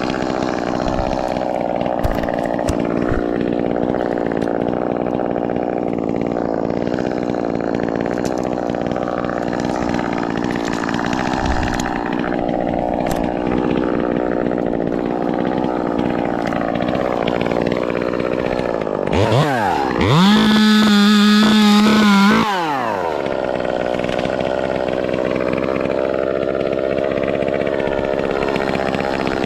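Ported Echo 2511T top-handle chainsaw running steadily. About nineteen seconds in it revs sharply up to full throttle, holds for about three seconds, then drops back.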